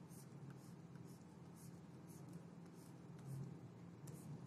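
Faint scratching of a stylus pen drawing a series of short strokes on a drawing tablet, over a steady low hum.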